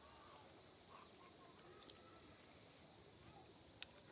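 Near silence with a faint, steady, high-pitched insect drone, a few faint chirps and one soft click near the end.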